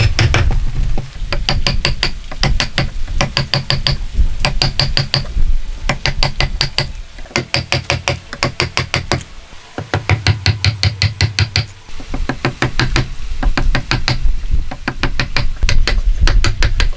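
A hammer driving a wood chisel into a hardwood beam to chop out a joint: runs of quick, ringing blows, about four or five a second, broken by short pauses.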